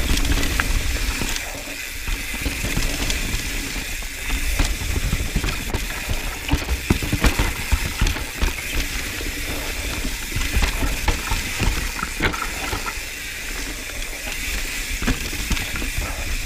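Mountain bike running fast down dirt singletrack: the rear freehub buzzes steadily as the rider coasts, and the tyres roll over dirt and roots. Short knocks and rattles come from the bike over bumps, with a low wind rumble on the microphone.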